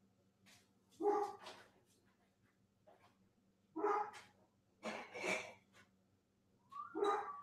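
A dog barking in short single barks: one about a second in, a couple around four to five seconds, and another near the end.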